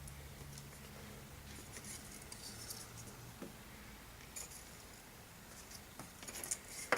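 Faint scratches and light taps of small balsa-wood model parts being handled and set in place, over a faint low hum.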